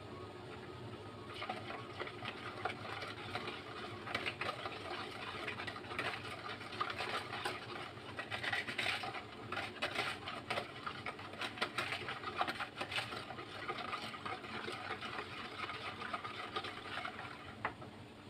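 Wire whisk beating thin batter in a plastic bowl: a rapid, uneven run of clicking and swishing as the wires hit the batter and the bowl's sides. It starts about a second in and stops near the end.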